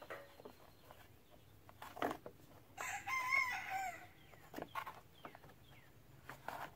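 A rooster crows once, a single call lasting just over a second, about three seconds in. Around it are a few light knocks and rubs from the plastic cover being pressed into place by hand.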